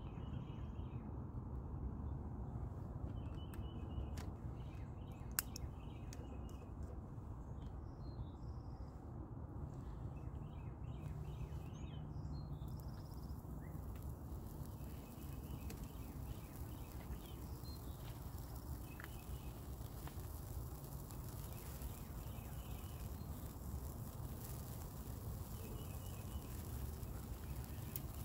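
Outdoor ambience: a steady low rumble with birds chirping in short calls that repeat every few seconds, and a couple of faint clicks in the first few seconds.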